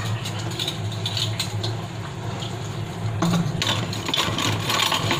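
Dishes and utensils clinking and clattering against each other during hand dishwashing at a sink, with scattered sharp clicks that grow busier from about three seconds in, over a low steady hum.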